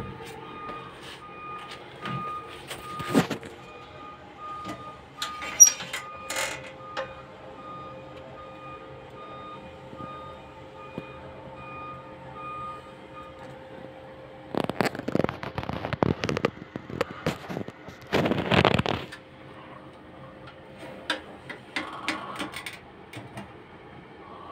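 A steady machine hum with a faint pulsing high tone during the first half. Over it come scattered knocks and clicks, and two louder rushes of rustling noise a little past the middle.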